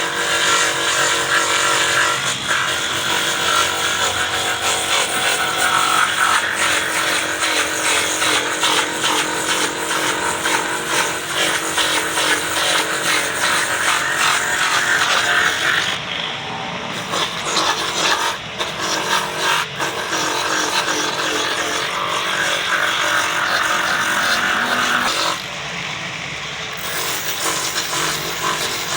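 A motor-driven machine running loudly and steadily. Its higher-pitched part cuts out briefly about sixteen seconds in and again near the end.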